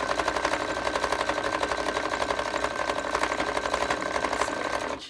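Electric sewing machine running at speed in one continuous burst of stitching, with a rapid, even needle rhythm; it starts and stops abruptly. The machine is back-tacking, stitching back and forth over the end of an elastic ear loop to anchor it.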